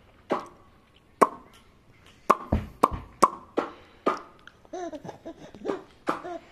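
A run of about eight short sharp pops over the first four seconds, then a baby laughing in short bursts near the end.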